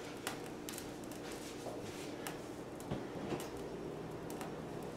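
Steak searing in a cast-iron skillet, sizzling with small irregular pops and crackles, about one or two a second, over the steady hum of a range hood fan.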